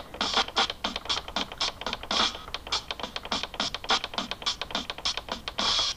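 Akai MPC 1000 controls clicking in quick succession, about three or four clicks a second, as the auto-chopped sample's slices are stepped through one region at a time.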